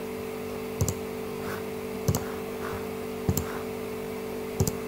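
Computer mouse clicking, four single clicks about a second and a half apart, selecting edges in CAD software, over a steady low hum.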